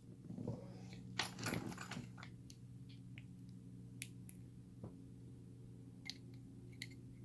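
Faint, scattered clicks and taps of small metal lock parts being handled, about half a dozen over a few seconds, over a steady low hum.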